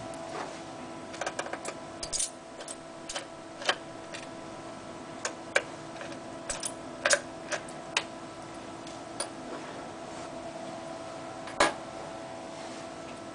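Irregular clicks and taps of small plastic and metal laptop parts being handled during a hard drive swap, a few louder than the rest, over a steady hum.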